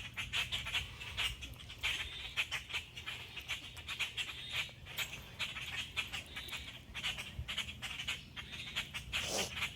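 Birds calling: a dense run of short, sharp calls repeating throughout, over a steady low rumble.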